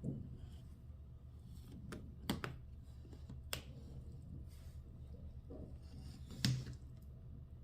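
Kitchen handling noises: a few sharp clicks and taps over a low steady hum, the loudest about six and a half seconds in.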